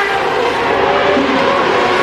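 Several open-wheel IndyCar-style race car engines running at high revs together. Their pitches hold high and shift slightly against one another as the cars pass.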